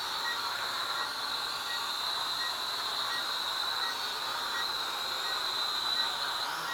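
Small toy quadcopter's four propellers whirring in a steady high-pitched whine as it hovers; the pitch rises briefly near the end.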